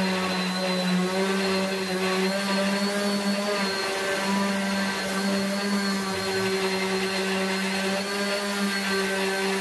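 Electric random orbital sander running steadily as it sands the face of a willow cricket bat: an even motor hum with overtones over the hiss of the sanding disc on the wood.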